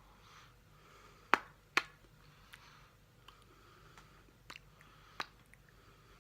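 Lips smacking and parting over freshly applied lip gloss: a few small, wet clicks, the two loudest close together about a second and a half in, then fainter ones spread out after.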